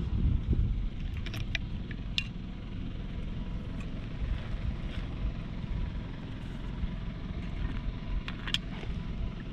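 Steady low outdoor rumble, strongest in the first second, with a few short faint clicks and rustles about a second in and again near the end.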